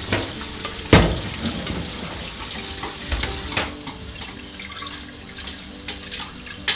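Water pouring and splashing into a stainless-steel kitchen sink as the cooking water is drained from a clay pot, with pots and dishes knocking against the sink; one loud clunk about a second in.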